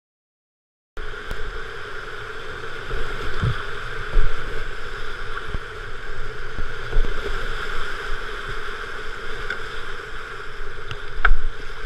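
Steady rush of whitewater through a river rapid, heard from a kayak's bow camera, with scattered low thumps of water and wind buffeting the microphone. It starts about a second in, after silence.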